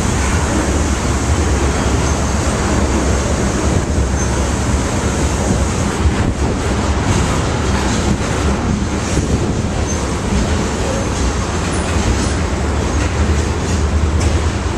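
Freight train tank cars rolling past close by: a loud, steady rumble of steel wheels on rail, with a few faint knocks along the way.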